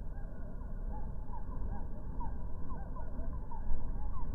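A flock of Vaux's swifts calling as they circle over a roost chimney: many short chittering chirps overlapping, over a steady low rumble.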